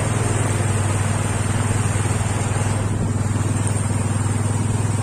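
Small motorcycle engine running at a steady, even pace while ridden through floodwater, with a steady hiss of water churned up by the wheels.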